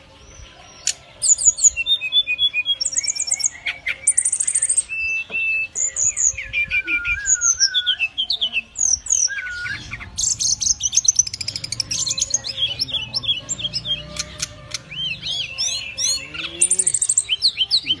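Brown-chested jungle flycatcher singing a rapid, varied song of quick trills and sliding, high whistled notes, starting about a second in and running on with only brief gaps.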